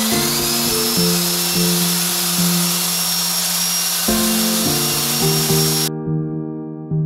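Electric paddle mixer whirring as it stirs tile adhesive in a plastic bucket, a hissing motor whine that rises in pitch just after the start, under background music. The mixer sound cuts off suddenly about six seconds in, leaving only the music.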